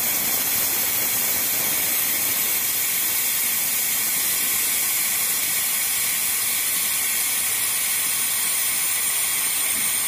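Steady hiss of compressed air venting through the opened bogie isolating cock of a WAP4 locomotive's air brake. The brake cylinders are exhausting and the brake is releasing, the piston slowly drawing back in.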